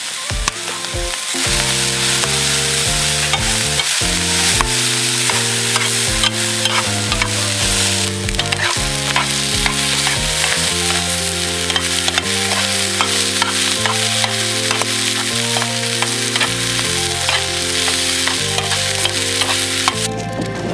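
Food frying with a steady sizzle full of small crackles, over background music of held low notes and chords. The sizzling cuts off suddenly near the end.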